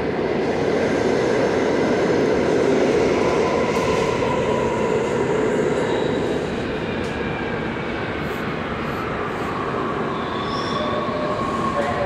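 A subway train running on a nearby track in an underground station: a steady rumble of wheels on rail with thin, high wheel squeal that glides in pitch. It is loudest in the first few seconds and eases off after about six seconds.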